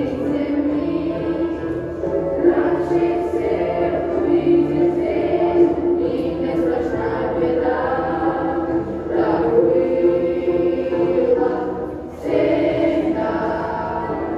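A group of school children singing a song together in chorus, in sustained phrases.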